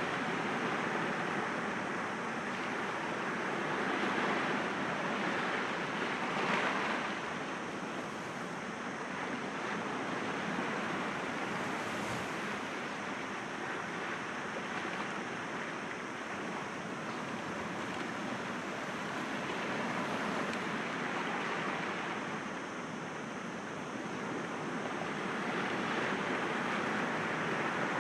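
Sea waves breaking gently against rocks: a continuous wash of surf that swells and ebbs every several seconds.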